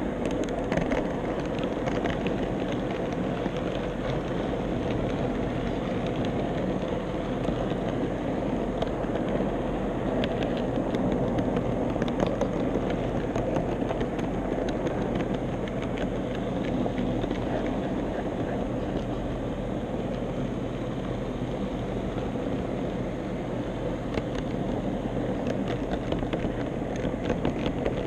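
HO-scale model tram running along its track: the steady whir of its small electric motor and gearing with wheels rolling on the rails, and occasional light clicks.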